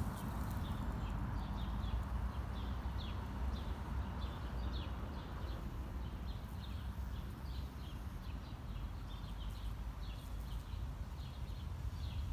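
Small birds chirping: many short, high chirps in quick irregular series, over a steady low rumble of city background noise.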